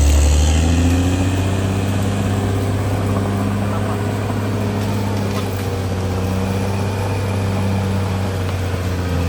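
Diesel engine of a CAT D6R XL bulldozer running steadily at an even engine speed.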